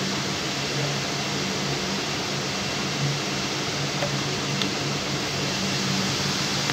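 Steady hum and hiss of a running fan, the room's background noise.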